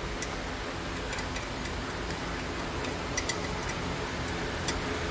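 Steady background hiss with a few faint, sharp ticks scattered through it.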